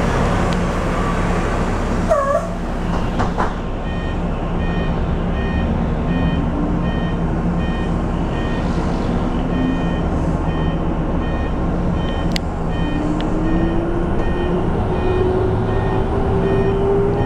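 Inside a RAC EV RACE 150 electric bus on the move: steady low rumble and road noise, with the electric drive motor's whine rising in pitch as the bus gathers speed. An electronic beep repeats about twice a second from about four seconds in, and a short squeal sounds about two seconds in.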